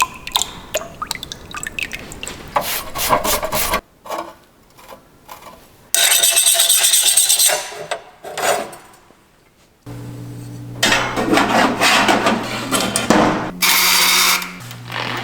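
Metalworking sounds in short cut-together pieces: scraping and rubbing strokes, a loud burst of hiss about six seconds in, then a steady machine hum with rough grinding or rubbing noise over it and another brief hiss near the end.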